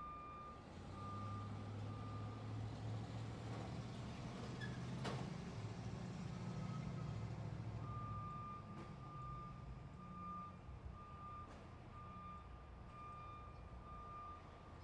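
A truck's reversing alarm beeping at one steady pitch, about once a second, over the low rumble of its engine; the beeping stops for a few seconds partway through, and there is one sharp click about five seconds in.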